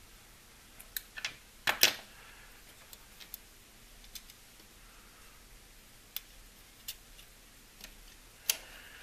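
Small, sharp, irregular clicks and ticks of jeweler's pliers and stiff diode wire leads against a circuit board as the leads are bent over. The loudest cluster comes about two seconds in.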